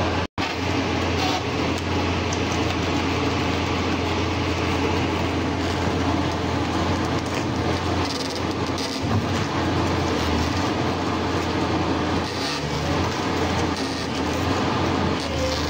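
Hyundai crawler excavator's diesel engine running steadily under load while its bucket presses against a tall granite block. The sound cuts out for a split second near the start.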